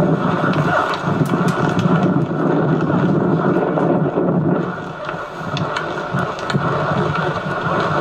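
Steady rushing rumble of wind and movement on a camcorder microphone carried on horseback, with a few faint clicks, heard as muffled playback through a television speaker.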